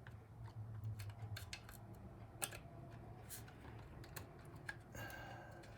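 Faint scattered clicks and light clatter of hands handling small computer parts and cables, over a low steady hum.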